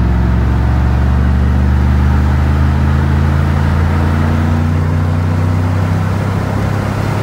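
Engine of a GMT800 GM pickup (1999–2004 Sierra/Silverado), heard inside the cab, pulling hard under acceleration at about 3,000 rpm. It is a steady drone whose pitch creeps slowly upward.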